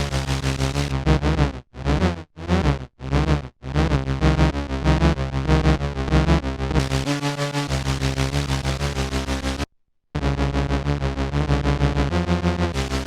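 Formanta Polivoks Soviet analogue synthesiser playing a sequenced bass line: a low riff of fast repeated notes, chopped into short stabs about two seconds in and cutting out for a moment about ten seconds in.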